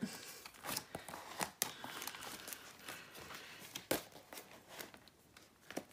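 Photocards and plastic binder sleeves being handled: faint rustling with a few light clicks and taps.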